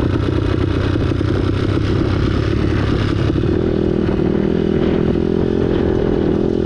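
2009 Honda CRF250R's single-cylinder four-stroke engine running while riding a dirt trail, the revs shifting early on and then holding steadier from about halfway in.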